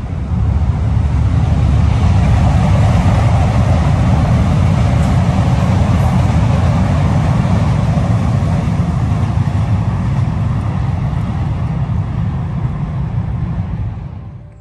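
Wind buffeting a handheld phone microphone, a loud steady low rumble with a rushing hiss over it. It swells about half a second in and drops away sharply near the end.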